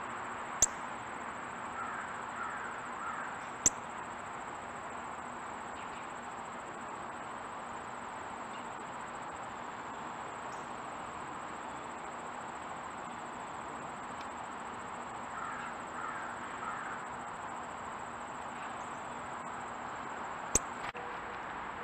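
Outdoor ambience: a steady hiss with a thin, steady high-pitched whine, faint chirps twice, and three short sharp clicks, once near the start, once about four seconds in and once near the end.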